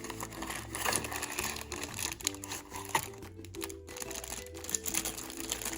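Packaging crinkling and rustling in short bursts as a small toy box is unpacked, over steady background music.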